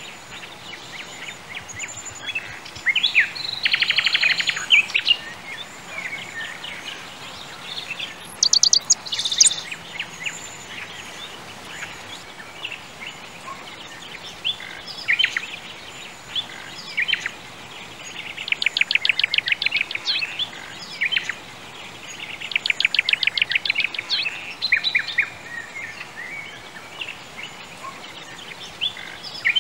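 Birds chirping and singing over a steady background hiss, with short scattered calls and three longer rapid trills.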